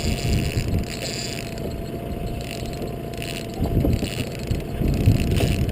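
A fishing boat's motor running steadily at low trolling speed, with low gusts of wind buffeting the microphone several times.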